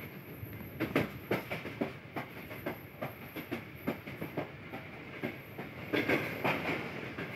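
Wheels of a moving passenger train clattering on the track, heard aboard: a steady running rumble with a string of sharp, irregular knocks starting about a second in.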